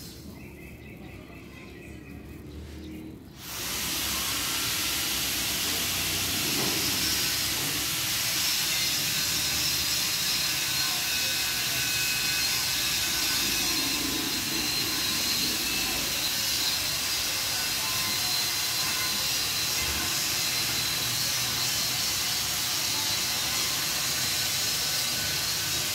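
A steady, loud hiss that starts suddenly about three and a half seconds in and holds even.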